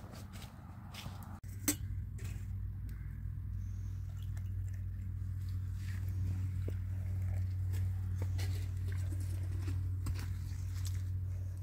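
Steady low rumble with scattered light clicks and clinks of glass tea cups and a metal kettle being handled on a tray.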